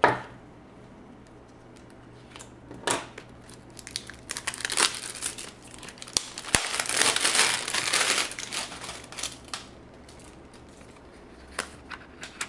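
Cardboard SSD retail box being opened by hand, its clear tape seal being peeled: crinkling and crackling, densest from about four to nine and a half seconds in, with scattered light clicks before and after.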